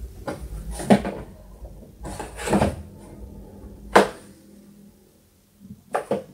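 Knocks and a scraping rustle on a wooden cabinet as a baby pig-tailed macaque clambers over it. There is a sharp knock about a second in, a longer scrape and rustle around two and a half seconds, another sharp knock at four seconds, and two quick knocks near the end.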